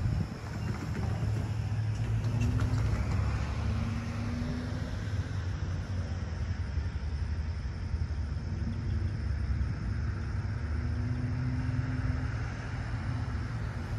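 Steady low rumble of road traffic, with a faint engine hum from passing vehicles that comes and goes twice.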